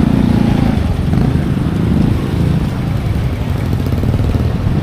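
Small motor vehicle engine running close by, with a steady low rumble.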